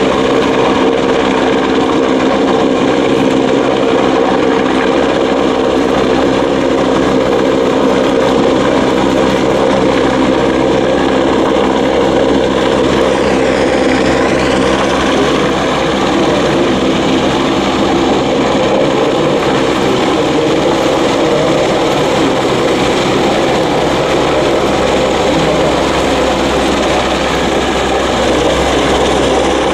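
AgustaWestland EH-101 Merlin helicopter hovering, its rotor and turbine engines running steadily. A high turbine whine sits over the rotor noise and dips briefly in pitch about halfway through.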